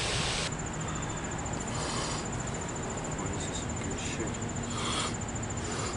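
About half a second in, a rush of hiss gives way to an insect trilling steadily: a high, fast-pulsing chirr that carries on throughout. A few soft rustles come and go under it.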